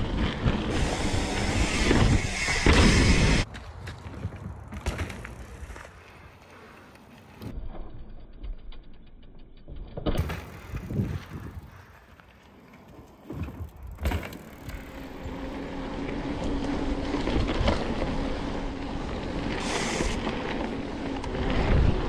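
Mountain bikes riding over a dirt trail: a steady mix of tyre and bike noise with wind rumbling on the microphone. It comes in several short clips that change abruptly, one of them much quieter.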